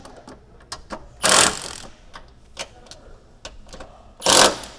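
Ratchet wrench with a 12 mm socket clicking as it runs down the nuts on a shock absorber's top mount, in irregular runs of clicks. Two louder short bursts come about a second in and near the end.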